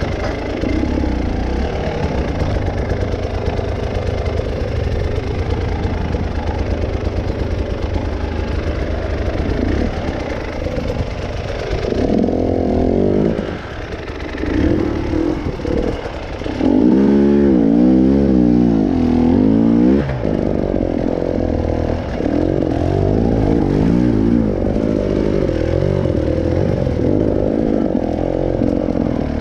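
Motorcycle engine running under way, its revs rising and falling over and over as it accelerates and backs off, busiest and loudest about halfway through.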